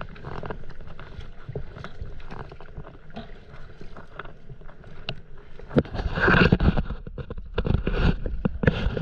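Stand-up paddleboard being paddled on the sea: the paddle dipping and pulling through the water, water lapping at the board, with small knocks. From about six seconds in, louder rough splashing noise and sharp knocks take over.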